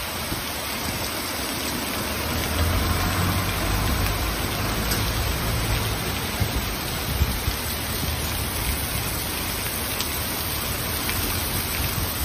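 Torrential rain pouring onto a flooded street, a steady dense hiss, with a low rumble swelling a few seconds in.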